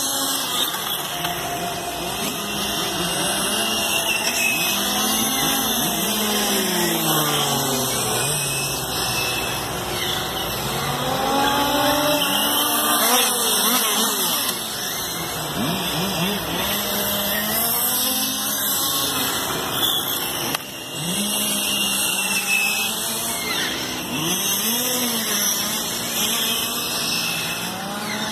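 BURI-Racer radio-controlled cars lapping a track, their motors whining and sweeping up and down in pitch as they accelerate, brake and pass, several at once.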